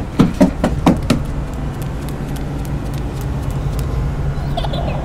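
Several quick footsteps on wooden stairs in the first second or so, then a steady low hum.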